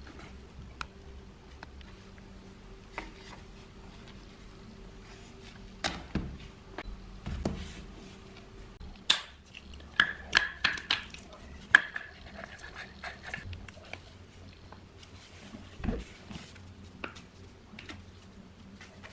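Metal parts being handled: scattered clicks and knocks, with a run of ringing metallic clinks about halfway through, over a low steady hum.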